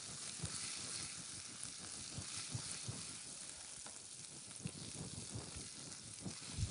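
Minced garlic frying in a little oil in a pan, a faint steady sizzle with scattered small crackles, as the garlic begins to turn golden.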